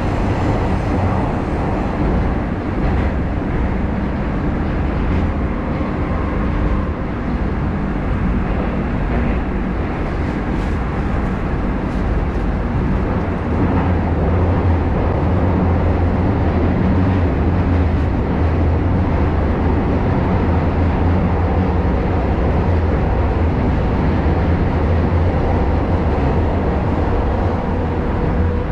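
An 81-740 Rusich metro train running through a tunnel, heard from inside the car: a loud, steady rumble of wheels on rail. The low rumble grows stronger about halfway through, with a few faint clicks before that.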